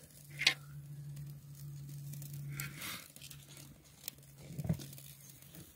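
Small dry twigs rustling and clicking as they are handled and laid over a freshly lit tinder fire, with a few isolated sharp ticks spread through an otherwise quiet stretch.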